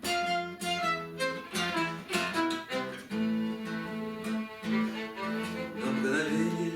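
Instrumental break in a sung tango: plucked guitar notes over bowed strings. The plucked notes come thick in the first half, and the strings hold longer notes from about halfway through.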